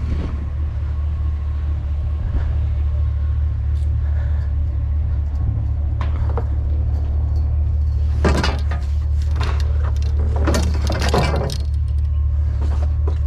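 Pickup truck engine idling with a steady low rumble. Two short noisy bursts stand out over it, one about eight seconds in and a longer one about ten to eleven seconds in.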